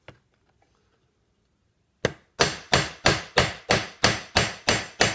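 Flat face of a ball-peen hammer peening copper rivets through a 16-gauge steel strip into a leather bracer, over the horn of an anvil. A steady run of sharp metallic strikes, about three a second, each ringing briefly, starting about two seconds in.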